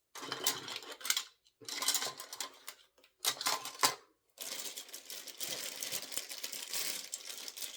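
Small plastic LEGO pieces clattering in three short bursts as hands rummage through them. This is followed by a steady rustling of a plastic parts bag for the last few seconds.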